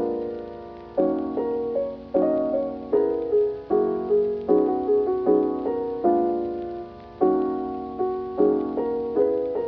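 Background music: solo piano playing slow chords, each struck and left to ring and fade before the next.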